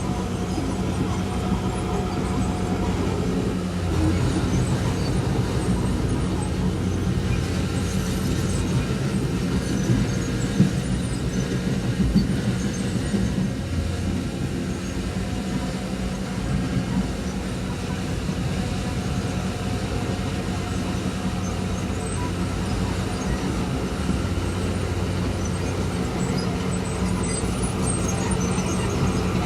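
Diesel engine of heavy earthmoving machinery running steadily, with a couple of short sharp knocks near the middle.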